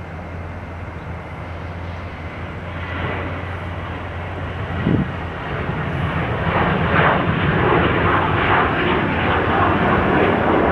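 Airliner jet engines running past, a steady rumble that grows louder and rougher about halfway through.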